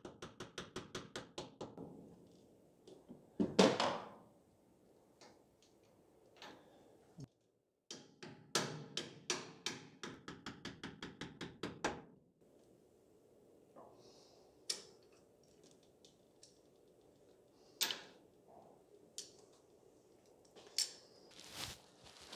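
A plastic-faced mallet tapping a hardened half-inch steel dowel pin down into its hole in a machined cast-iron face, in quick light strokes about five a second. One harder knock comes about four seconds in, then a second run of taps, then scattered single clicks and knocks.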